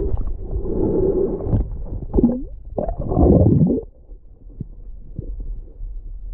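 Muffled underwater rumbling and gurgling of water moving around a submerged camera and hands, in uneven surges for about four seconds. It then drops to a quieter bed with scattered faint clicks.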